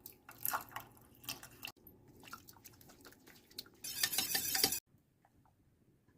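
Spoon stirring in a pot, with scrapes and clinks, then about four seconds in a dense rushing burst that lasts under a second and stops abruptly.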